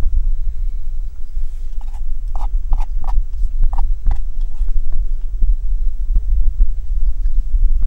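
Steady low rumble of wind buffeting the microphone, with a quick run of light clicks and taps about two to four seconds in.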